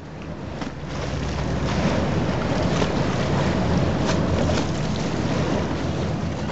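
Choppy lagoon water washing and splashing against stone steps, with a low steady rumble underneath.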